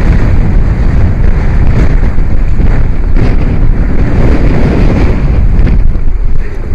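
Strong wind of about 30 knots buffeting the microphone, a loud steady rumble that surges with the gusts.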